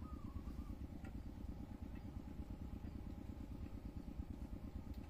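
An engine idling steadily: a low rumble with a fast, even pulse.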